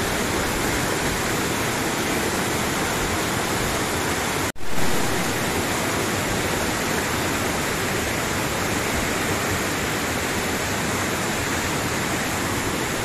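Rushing white water of a small rocky mountain stream: a steady, even rush of water, which drops out for an instant about four and a half seconds in.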